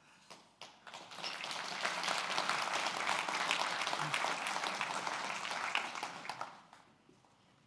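Audience applauding: scattered claps swell into steady applause about a second in, then fade away over the last couple of seconds.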